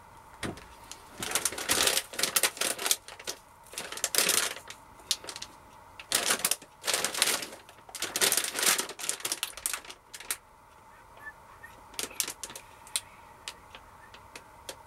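Plastic snack bag crinkling and rustling as it is handled and turned over, in irregular bursts with short pauses between.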